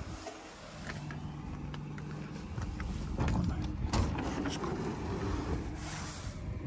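A road vehicle's engine running nearby with a steady low hum, growing louder for a couple of seconds around the middle, with a few light clicks.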